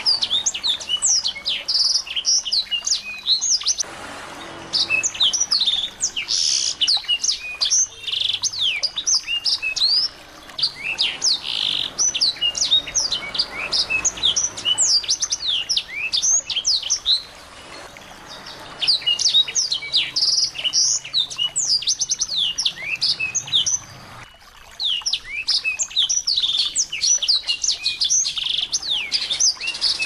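Small songbird singing a fast, high-pitched string of chirps and sharp down-slurred notes, in bouts of several seconds broken by short pauses.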